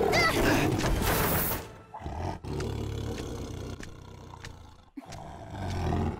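A cartoon black panther's big-cat growling and roaring: loud in the first second and a half, then a low rumbling growl, rising again just before the end.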